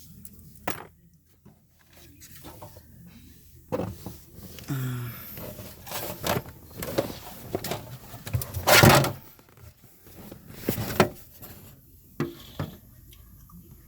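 Handling of plastic parts: a string of sharp clicks and knocks with scraping and rustling between them, the loudest a little past halfway through.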